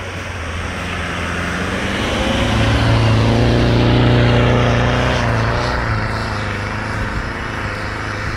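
Land Rover Defender 110 4x4 driving past through deep fresh snow: the engine note grows louder to a peak about four seconds in, then fades as the vehicle pulls away.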